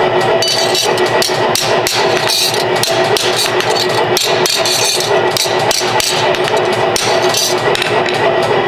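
Repeated hammer strikes on steel, about two a second, with background music running underneath.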